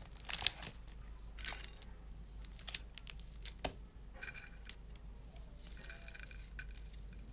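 Dry crackles and crinkles of a block of uncooked instant noodles and crunchy puffed snacks being handled in a clear bowl. A few sharp crackles come in the first four seconds, then softer rustling as the noodle block is lifted.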